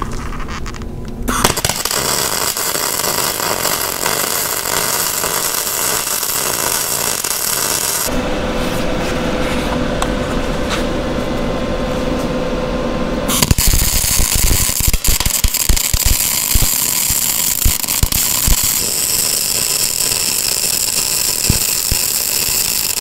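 Shop sounds cut together from several clips: the steady hiss and crackle of arc welding on a steel press brake frame, broken about eight seconds in by a few seconds of a power tool's steady whine.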